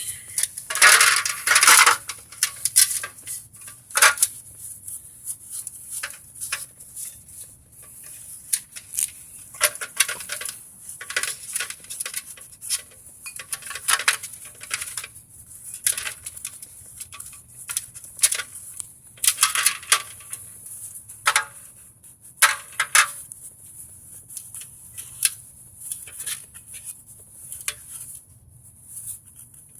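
Hand-scrubbing of a metal brake caliper with a rag: irregular rubbing and scraping strokes with clinks and knocks of metal parts being handled.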